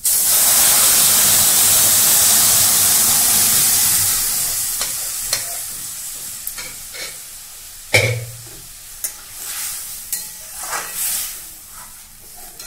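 Boiled moong dal poured into a hot kadai of fried vegetables and spices: a loud sizzle starts at once as it hits the hot oil and dies down over several seconds. Then a ladle stirs and knocks against the pan, the loudest knock about eight seconds in.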